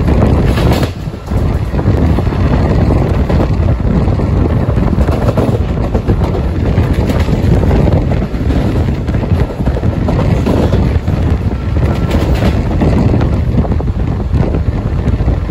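Loud wind buffeting the microphone over the steady rumble and rattle of an express train's coaches running at about 100 km/h, heard at an open coach window.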